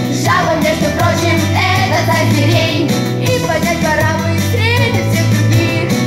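A girl singing a song through a headset microphone over amplified music with a steady bass line.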